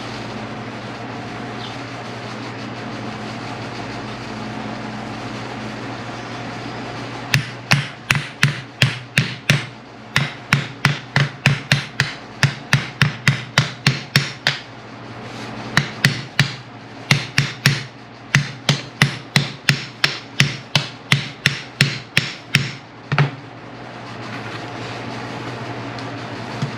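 Hammer tapping steadily, about three blows a second, in two runs with a short pause and one last blow: the piston of a Ford tractor's 3-point lift cylinder, fitted with a new seal, being driven into its bore.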